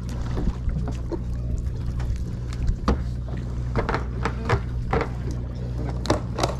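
Steady low hum from the fishing boat, with scattered clicks and knocks as a freshly caught fish is unhooked by hand.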